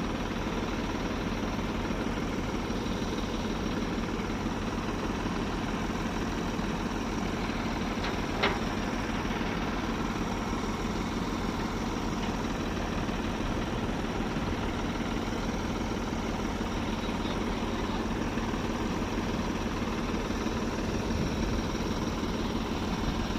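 An engine idling steadily, with one sharp click about eight seconds in.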